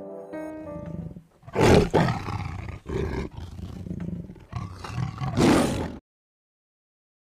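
Tiger roar sound effect: a loud roar about a second and a half in, a run of growls, and a second loud roar that cuts off suddenly about six seconds in. Musical notes from the preceding logo fade out during the first second.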